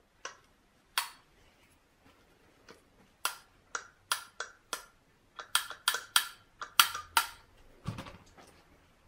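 Sharp metal clicks and knocks from handling an aluminium throttle body and hand tools. A few single clicks come first, then a quick run of about a dozen between about five and seven seconds in.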